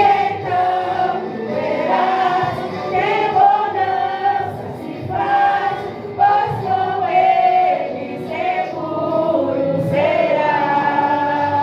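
A church youth group singing a gospel song together in chorus, mixed voices over a musical accompaniment.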